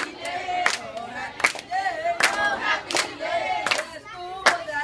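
A group of children singing together in unison while clapping along, one clap about every three-quarters of a second.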